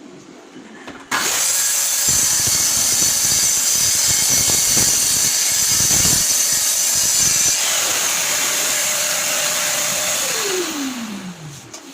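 Electric power saw switched on about a second in, running at speed and cutting wood for several seconds, then switched off near the end, its motor whine falling in pitch as the blade winds down.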